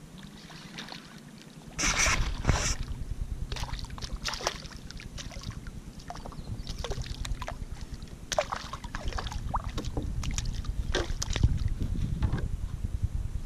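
Water splashing beside a plastic kayak, with a sharp splash about two seconds in, a second just after, then scattered smaller splashes, drips and knocks against the hull.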